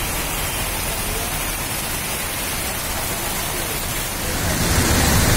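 Heavy rain pouring down steadily, growing louder with a deeper rush about four seconds in.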